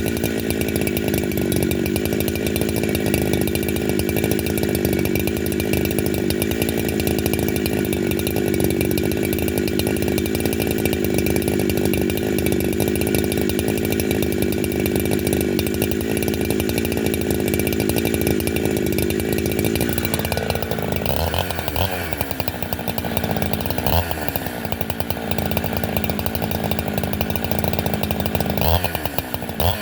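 Holzfforma G372 two-stroke chainsaw with a 28-inch bar running at high speed with a steady pitch for about twenty seconds. It then drops back, with a few short revs whose pitch falls away each time.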